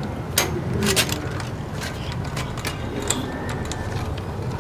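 Light, irregular clicks and ticks of a small plastic-and-metal tripod ball head being screwed by hand onto the tripod's threaded stud, over a low steady hum.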